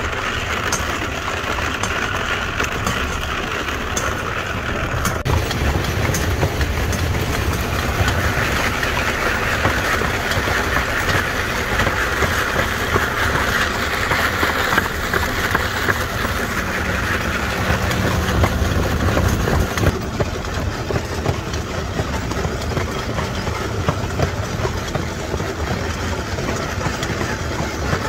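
Steady rumble and rattle of a horse-drawn wooden cart rolling along a road.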